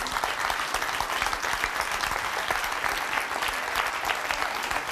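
Studio audience applauding: a dense, steady patter of many people clapping.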